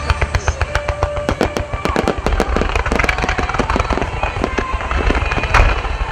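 Wide-front starmine fireworks firing: a dense, rapid volley of overlapping launch and burst bangs and crackles, with one especially loud bang about five and a half seconds in.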